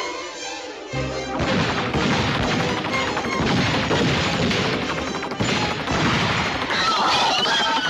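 Cartoon soundtrack: orchestral music mixed with crashing and banging sound effects, with a heavy thud about a second in.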